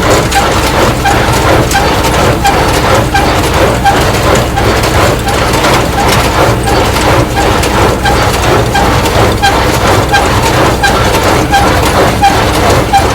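Tractor-drawn small square hay baler running in the field, its plunger knocking in a steady rhythm over the low, steady run of the tractor engine.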